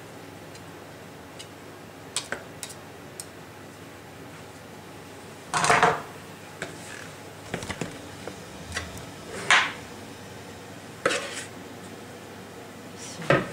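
Kitchen clatter of dishes and utensils being handled: a handful of separate knocks and scrapes. The loudest are a longer clatter about six seconds in and a sharp knock near nine and a half seconds.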